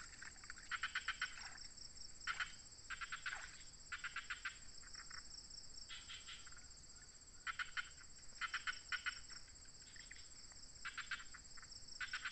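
Insects calling in undergrowth: a steady high-pitched drone with short, rapidly pulsed chirping trills repeating every second or so at irregular intervals.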